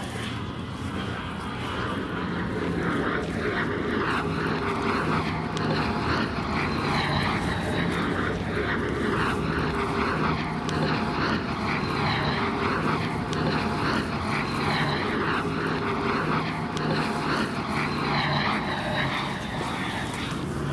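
A small motor running steadily with a regular pulsing beat, a little faster than once a second.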